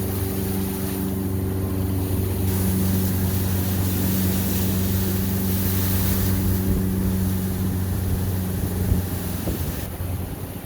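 A motorboat's engine running steadily under way, with wind rushing over the microphone that eases near the end.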